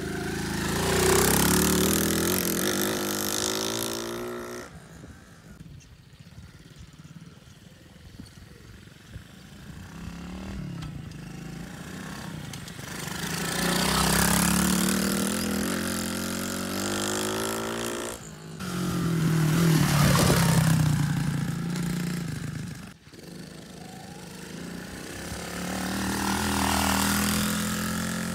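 Stomp Juice Box 110cc pit bike's small single-cylinder four-stroke engine revving up and down as the bike rides around. It swells loud four times as it passes close, with a quieter stretch early on between them, and breaks off suddenly a few times.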